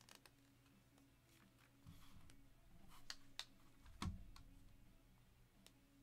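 Faint clicks and rustles of trading cards and plastic card holders being handled, with a soft thud about four seconds in as a card in a clear plastic holder is set down on the table.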